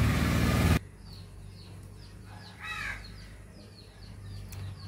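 A vehicle engine running loudly, cut off abruptly less than a second in. Then small birds chirp over and over, and a crow caws once midway.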